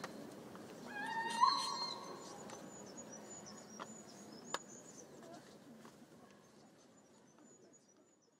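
Played-back recording of woodland nature sounds: a single drawn-out animal call that rises in pitch and then holds, about a second in, followed by faint high bird chirps and twittering. The sound fades out gradually to silence.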